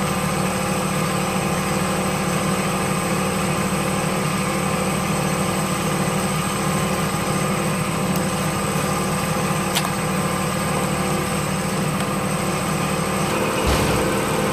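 Diesel engine idling steadily, a constant even hum with a thin high whine over it, while it warms up after starting. A brief click about ten seconds in and a low thump near the end.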